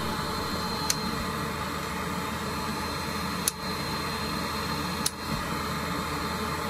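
Steady mechanical hum and hiss, with three short clicks about a second, three and a half and five seconds in.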